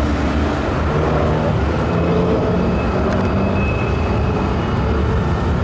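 Road traffic: car engines running with a steady low rumble.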